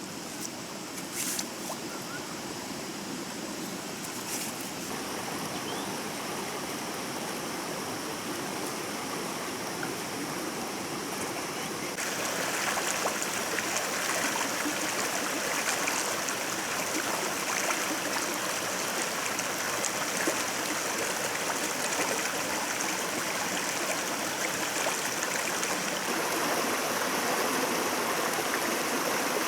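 A stream running over rocks, a steady rush of water that gets louder about twelve seconds in. A couple of faint clicks come in the first few seconds.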